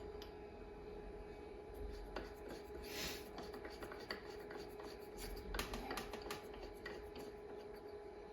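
Faint workshop handling sounds: scattered light clicks and rubbing of small metal parts, with a brief hiss about three seconds in, over a steady faint hum.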